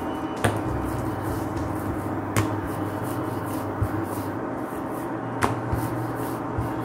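Wooden rolling pin rolling out a stuffed puri on a marble rolling board, with three sharp knocks of wood on stone, over a steady low hum.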